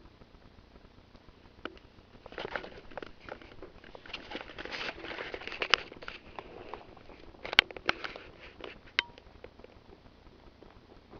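Rabbits chewing and crunching food at close range: a dense, crackly run of small bites from about two seconds in until about nine seconds, broken by a few sharp clicks, the loudest about seven and a half seconds in.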